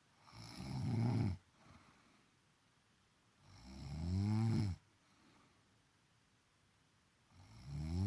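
A woman snoring: three snores about three and a half seconds apart. Each swells louder over about a second and cuts off sharply, followed by a faint breath out.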